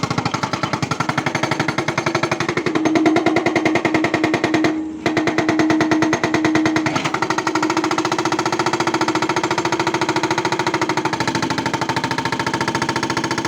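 Excavator-mounted hydraulic breaker hammering in a rapid, steady train of blows over the running machine, stopping briefly about five seconds in before resuming.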